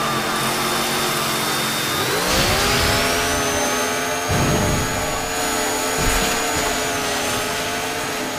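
Chainsaw sound effect: the saw's engine rises in pitch about two seconds in, then holds at a high steady rev as it cuts through a body. Heavy thuds come about four and six seconds in.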